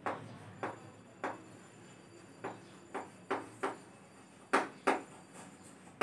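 Chalk writing on a chalkboard: about nine short, sharp taps and scratches at uneven intervals as a word is written out.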